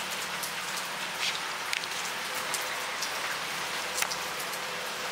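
Rain falling steadily on a wet patio and lawn, with a few sharper drip taps close by.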